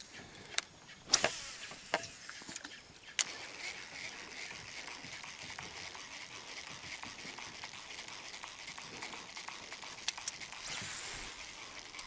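A few sharp clicks and knocks from a fishing reel and rod as a lure is cast, the loudest about a second in, followed by a steady faint hiss while the lure is worked back.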